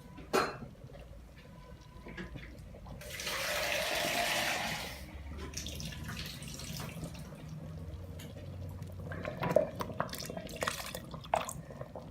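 Water poured into a pot of harira soup for about two seconds, starting about three seconds in, then a few sharp clicks and knocks.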